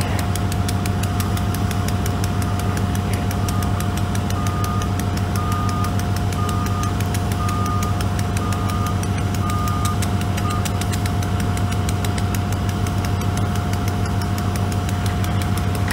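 Caterpillar wheel loader's reverse alarm beeping about once a second as it backs up, stopping about two-thirds of the way through, over the steady hum of idling diesel engines.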